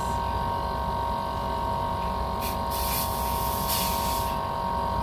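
Air-conditioning condensing unit running with a steady hum and a fixed tone while R-410A refrigerant is charged into it. Around the middle come three short hisses of refrigerant gas escaping as the manifold gauge valves are worked.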